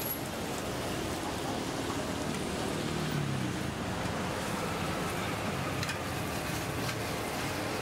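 Steady hiss of food sizzling on a flat-top griddle, with a couple of light spatula scrapes on the metal about six and seven seconds in.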